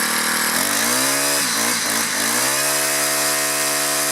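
Craftsman 4-cycle string trimmer engine revving up from idle about half a second in, dipping briefly, then holding steady at high speed. It runs smoothly after its carburetor cleaning and tune-up.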